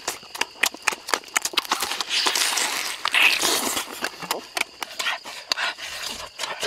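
Close-up eating sounds of roasted goose being eaten by hand: rapid, irregular wet lip-smacking and chewing clicks, with a stretch of louder hissy mouth noise about two to four seconds in.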